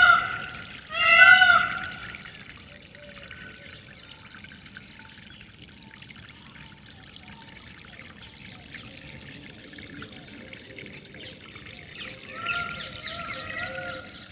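Water flowing and trickling steadily, with birds calling over it: two loud, strongly pitched calls in the first two seconds, faint chirps in the middle, and a run of shorter repeated calls near the end.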